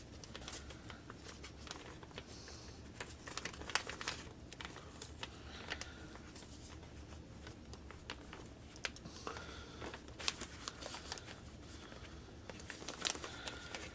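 A plastic bag rustling and crinkling as a wire and small parts are handled, with irregular rustles and scattered light clicks.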